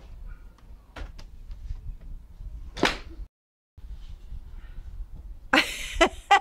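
A golf club striking a ball: one sharp crack a little under three seconds in, with fainter clicks about a second in. The sound drops out for half a second just after the strike, and a loud burst of noise follows near the end.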